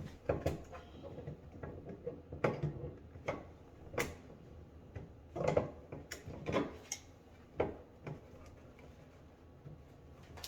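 Irregular sharp clicks and knocks, about one a second, of a tool working a washing-machine water fitting as it is tightened.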